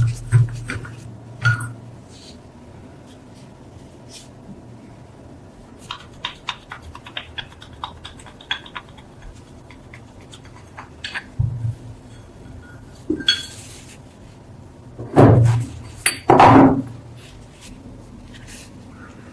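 Metal parts and tools clinking and knocking as they are handled on a workbench, with quiet gaps between. Near the end come two louder clatters of about half a second each.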